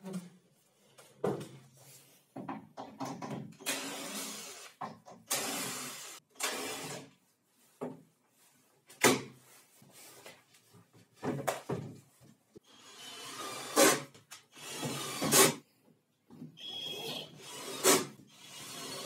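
Plywood and laminated cabinet panels being handled and fitted: a series of wooden scrapes, rubs and bumps, with several sharp knocks, the loudest about 9, 14, 15 and 18 seconds in.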